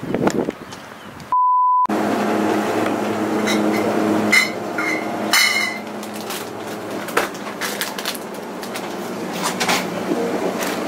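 A single half-second 1 kHz bleep, like an edit or censor tone, about a second and a half in. After it comes the steady electrical hum of a convenience store's glass-door drink coolers, with scattered clicks and knocks as a cooler door is opened and drinks are handled.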